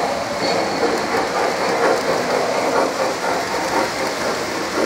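Model train boxcars rolling past on the track, their wheels rattling steadily on the rails.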